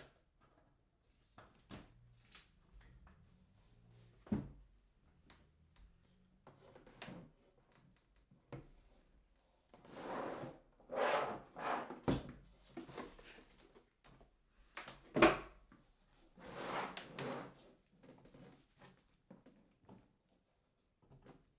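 Hands handling computer hardware: scattered light clicks and knocks, two longer stretches of scraping and rustling, and one sharp knock in the middle.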